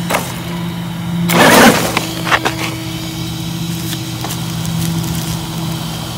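Electric RC monster truck on gravel: a steady low motor hum, with a loud rush of tyres crunching and spraying gravel about a second and a half in, followed by a few sharp clicks of stones.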